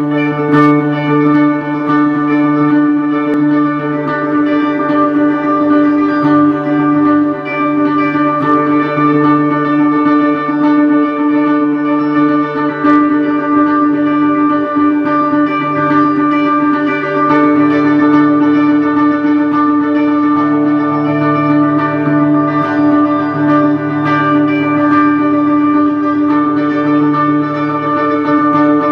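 Electric guitar played through a Westminster Effects Chick-Del-A delay pedal into an Orange amp: long held notes and chords that run into one another in a continuous wash of delay repeats. It starts suddenly, and the notes change about two-thirds of the way through.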